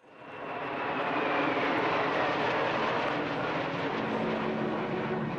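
Jet roar of a formation of Su-27 fighters with twin AL-31F turbofans flying past. It fades in at the start, with a high whine that falls in pitch over the first few seconds.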